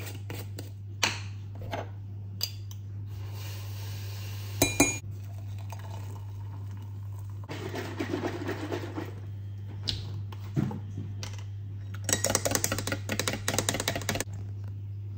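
Making a hot drink in a ceramic mug: a metal spoon clinks against the jar and mug, with a loud knock about five seconds in. A plant-milk carton is shaken, sloshing, around eight seconds in. Near the end the spoon stirs the mug, a fast run of clinks, all over a steady low hum.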